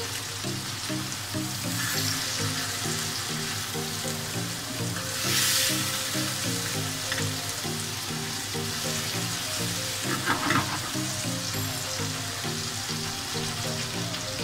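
Chopped tomato and garlic sizzling in oil in a frying pan as the tomatoes' water cooks off, stirred with a spatula, with a louder hiss about five seconds in and a few sharp scrapes of the spatula on the pan around ten seconds. Background music plays underneath.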